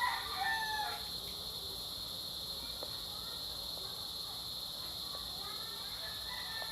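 A rooster crowing, the call ending about a second in, over a steady high-pitched drone.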